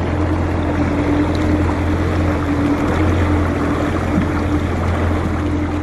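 Alumacraft aluminium fishing boat running under power: a steady motor drone with water rushing along the hull.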